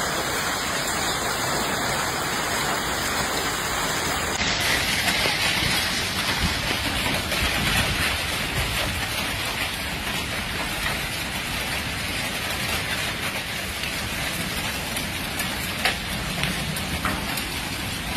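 Heavy storm downpour beating down as a steady, dense hiss, with a few sharp hits late on.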